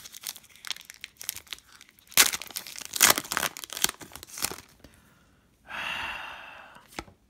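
Foil trading-card pack wrapper being torn open and crinkled by hand, in quick crackling rips, loudest between about two and three and a half seconds in. A short breathy hiss follows near the end.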